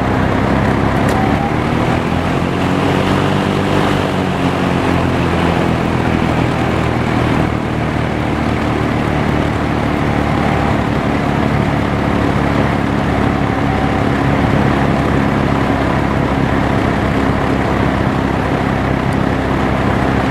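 Penncrest 50 (Lakewood) box fan with a 2.25 amp McMillan motor running on low speed: a steady rush of air over a motor hum, the hum wavering up and back down in pitch a few seconds in.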